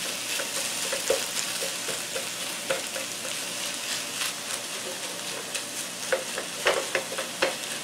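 Ground chicken sizzling as it starts to fry in a nonstick skillet on medium-high heat, with a silicone spatula breaking it up, scraping and tapping the pan. The clicks come more often near the end.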